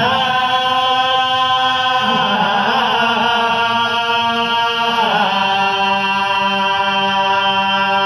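A voice chanting long, steady held notes, stepping to a new pitch about two seconds in and again about five seconds in.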